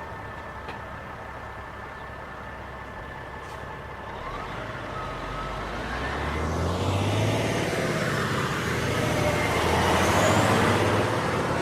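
A large road vehicle's engine rumbling, growing louder from about four seconds in as it draws near, with sliding pitch glides while it is closest.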